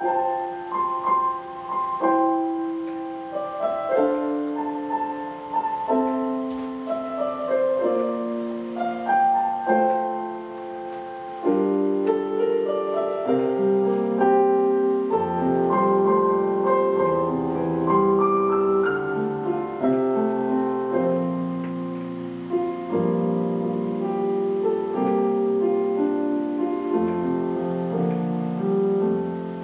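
Piano playing a slow, gentle instrumental introduction of held chords; fuller, lower chords come in about eleven seconds in.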